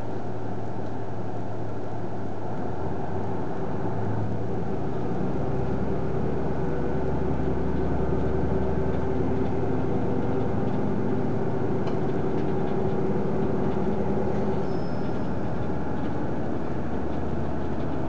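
Diesel engine of a KiHa 110-series railcar, heard from inside the car, accelerating as the train pulls away from a station; its low hum steps up in pitch a few seconds in and holds over a steady running rumble.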